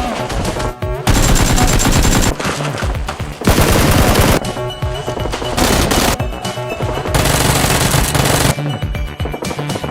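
Video-game automatic gunfire sound effects in a sustained firefight, dense volleys with brief pauses, over background music.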